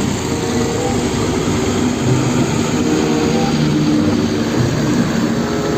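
A loud, steady engine-like drone that holds evenly and cuts off suddenly at the end.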